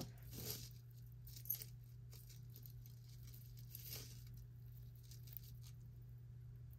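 Faint clinks and rustles of small pieces of jewelry being handled and pulled out of a box, a few scattered clicks over a steady low hum.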